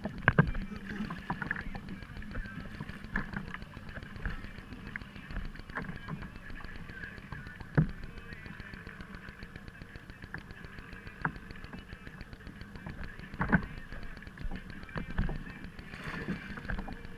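Scattered knocks and clunks from gear and hands against a kayak, over a steady background rush of water and wind. One sharper knock comes about eight seconds in and another a few seconds later.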